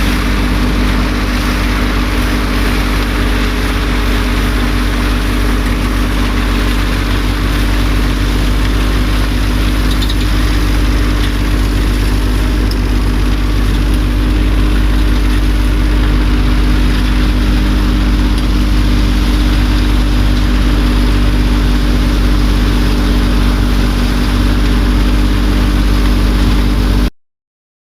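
An engine running steadily with a low hum, which cuts off abruptly near the end.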